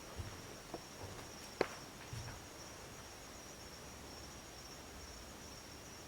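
Insects chirring steadily at a high pitch, with a few faint knocks and one sharper click about a second and a half in.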